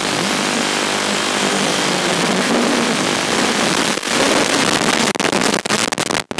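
Toothpick FPV drone's small brushless motors and propellers buzzing loudly over heavy hiss in flight, the pitch shifting with throttle. From about five seconds in the sound turns choppy and broken as the drone comes down.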